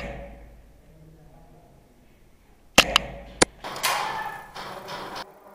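HPA-powered airsoft G3 rifle with a Kythera engine firing: three sharp cracks about three seconds in, the last half a second after the first two, followed by about a second and a half of noisy hiss.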